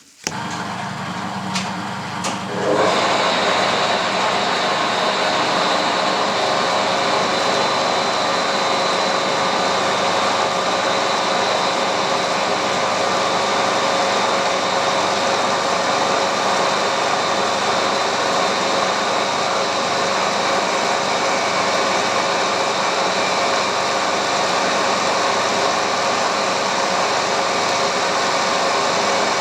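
Metal lathe running while drilling into a steel blank for a new ratchet ring: a steady machine run with a constant gear whine. There are two clicks early, then it gets louder about three seconds in and holds steady.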